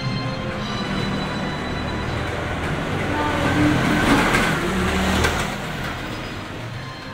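A motor vehicle passing close by. Its engine and tyre noise builds to a peak about four seconds in, then fades away.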